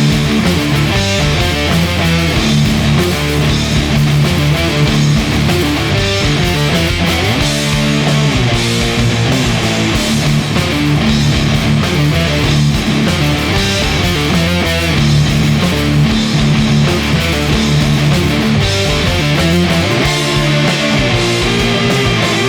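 Loud stoner rock from a band playing distorted electric guitars, bass and drums, holding one steady, heavy groove.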